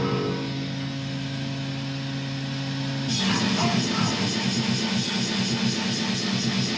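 Distorted guitar in a home-made goregrind/noise metal track: a held chord rings steadily, then about three seconds in the music abruptly turns into a fast, dense, noisy barrage that keeps going.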